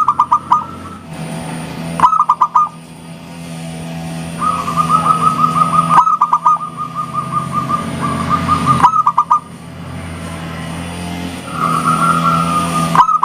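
Zebra dove (perkutut) cooing in repeated phrases. Each phrase is a quick stutter of short notes followed by a longer, wavering coo, with a steady low hum beneath.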